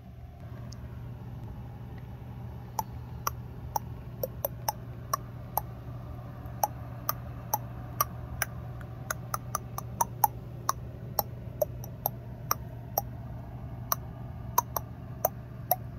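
Clock-like ticking, roughly two ticks a second, starting a few seconds in, over a steady low hum.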